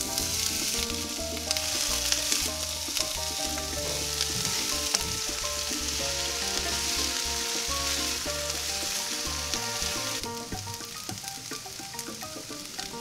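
Chopped onion sizzling in hot oil in a cast iron skillet, starting as the onion is tipped in. The sizzle drops to a quieter level about ten seconds in.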